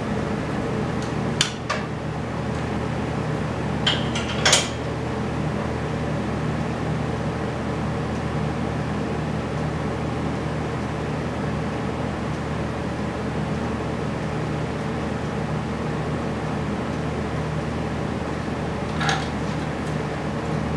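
A few sharp metallic clanks, the loudest about four and a half seconds in and one more near the end, as the engine is turned on its engine stand and its parts are handled. Under them runs a steady mechanical hum.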